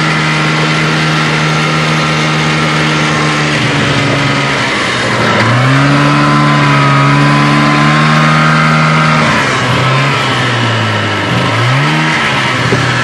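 Snowmobile engine running under the rider, heard from the seat. The throttle comes off about four seconds in, the engine picks up again and holds steady, then near the end it eases off and is blipped twice before settling lower.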